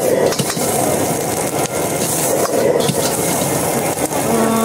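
Fried rice being stir-fried in a wok: a steel ladle scrapes and knocks against the wok over a steady roar of gas flame and sizzling. A short steady tone sounds near the end.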